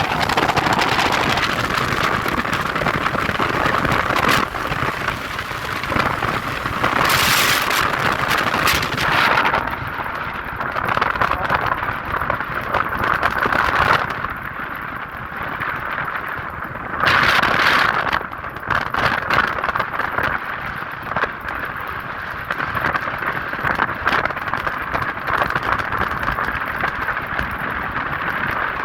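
Wind rushing over the microphone of a KTM 250 Adventure motorcycle on the move, its single-cylinder engine running underneath. There are two louder surges, about seven and seventeen seconds in.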